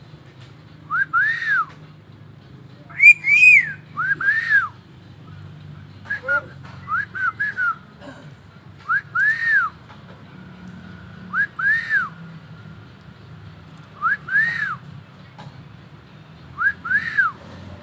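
Hill myna whistling: a clear two-note whistle, each note rising then falling, repeated about every two and a half seconds, with a quicker run of short notes partway through.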